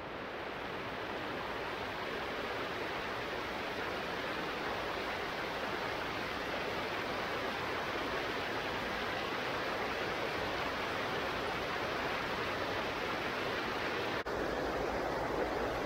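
Rapids of a shallow rocky stream rushing over boulders: a steady, even rush of water, broken once by a brief drop near the end.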